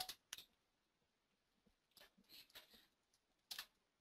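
Near silence with a few faint clicks, two in quick succession near the end.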